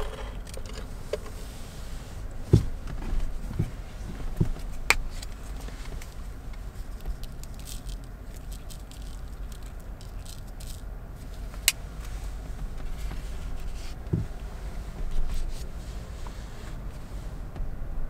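Steady low rumble of a car, with scattered sharp clicks and knocks over it.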